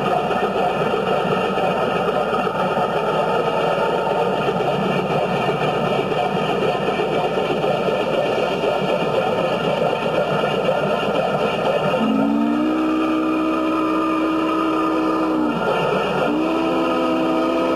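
Southern Pacific 4449, a 4-8-4 steam locomotive, running at speed with a steady rush of noise. About two-thirds of the way through, its chime whistle blows a long chord that sags in pitch as it closes, then starts a second long blast near the end.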